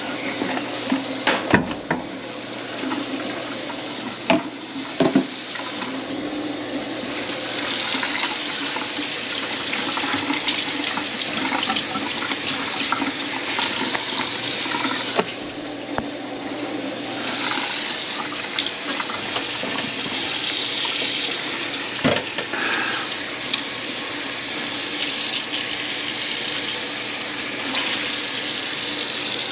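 Water running into a kitchen sink, its rush swelling and easing every several seconds, with a few sharp knocks in the first five seconds and one more about 22 seconds in.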